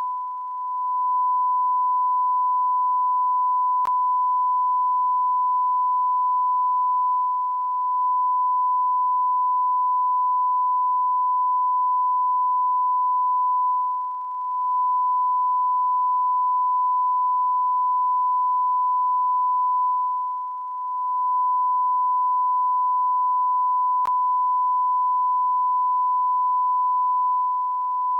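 A continuous electronic beep: one pure, steady, high-pitched tone held without a break, dipping slightly in loudness every six or seven seconds.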